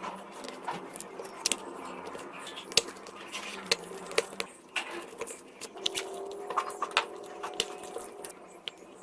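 Irregular sharp clicks and taps of small tools and parts being handled on a smartphone under repair, with a faint drawn-out tone from about six to eight seconds in.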